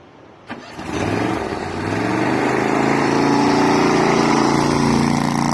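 An engine coming up in revs about a second in, then running steadily and loudly at an even pitch.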